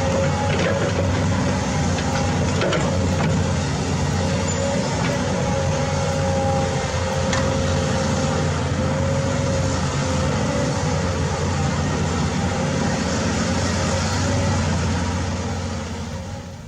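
A motor running steadily, with a low rumble and a slightly wavering whine, fading out near the end.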